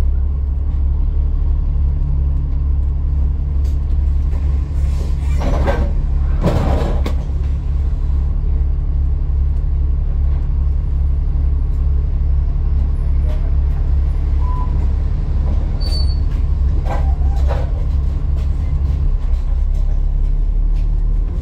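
ADL Enviro400 MMC double-decker bus engine idling steadily with a low drone, heard from inside the bus. There are two brief noisy sounds about six seconds in and two more near seventeen seconds.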